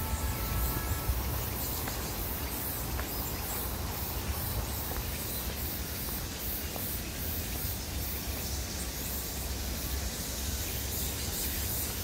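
Forest ambience on a wooded hiking trail: a steady low rumble of wind and handling on a moving microphone under a faint high hiss, with a few faint bird calls.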